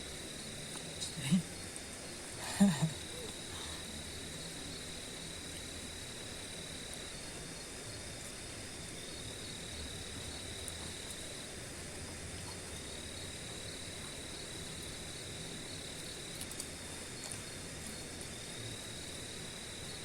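Insects trilling: a steady high-pitched trill that runs for several seconds at a time with short breaks, over a faint even hiss.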